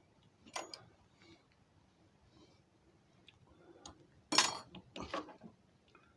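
Small metal tooling and parts clinking and knocking as they are handled: a light clink about half a second in, then a louder clatter a little past four seconds followed by a few smaller knocks.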